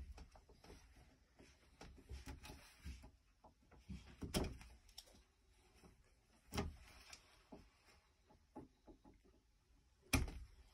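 Faint scattered clicks and knocks of wires and a hand tool being handled inside a metal breaker panel, with a few louder knocks spread through.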